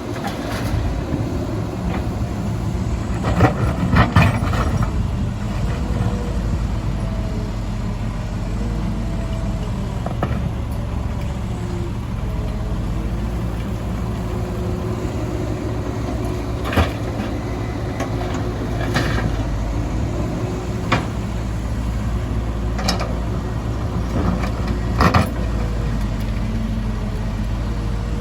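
Heavy diesel construction machinery running steadily, with a cluster of sharp knocks about three to four seconds in and single clanks every couple of seconds later on.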